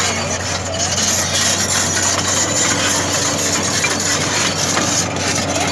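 Diesel engine of a JCB tracked excavator running steadily with a constant low hum as the machine moves.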